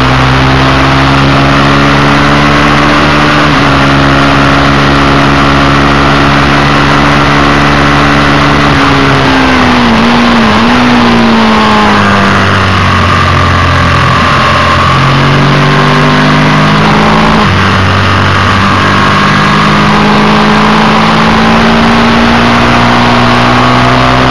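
Ducati Desmo Due 620 air-cooled two-valve L-twin engine pulling hard on a track lap, heard from on board with a steady rushing noise over it. The engine note holds high, falls and wavers as the bike slows for a bend about nine to twelve seconds in, runs lower for a few seconds, then climbs steadily as it accelerates out.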